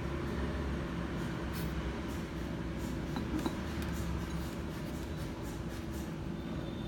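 A steady low background hum with a faint droning tone, and a couple of faint light ticks a little after three seconds in.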